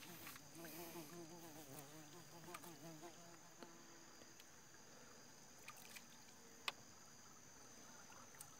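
Near silence: a steady high insect whine over quiet water, with a few small clicks and knocks as a gill net is hauled by hand into a wooden canoe. One sharper click comes near the end.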